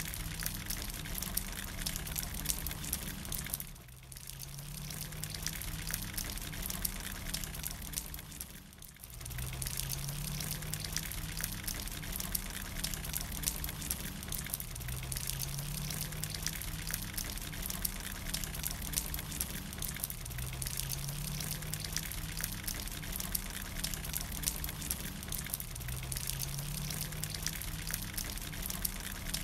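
Rain falling on a brick patio and potted plants: a steady patter of many fine drop ticks. The rain sound dips briefly twice in the first ten seconds, and a low hum rising in pitch every five or six seconds runs underneath.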